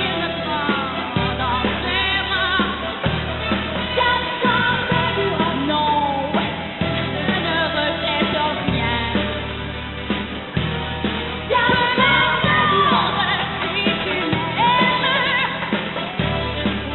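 A woman singing a pop song with vibrato over band accompaniment, the bass and low instruments moving in a steady repeating pattern.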